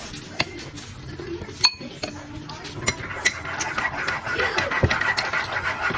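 Light clinks and taps of cutlery against dishes, a few separate strikes, with a soft rushing noise in the second half.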